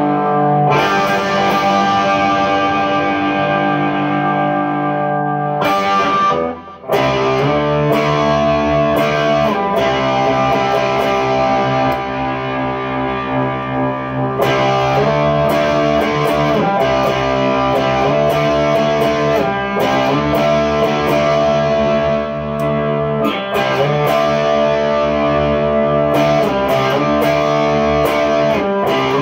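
Single-coil American Fender Stratocaster played through effects pedals into a Fender Twin Reverb amp, with sustained ringing chords. There is a short break about six and a half seconds in.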